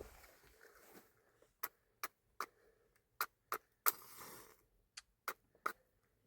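A series of sharp taps or clicks, about nine of them at uneven intervals over some four seconds.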